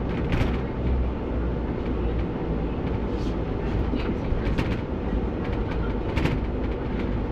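A bus in motion, heard from the driver's cab: a steady low engine and road rumble with scattered short rattles and clicks.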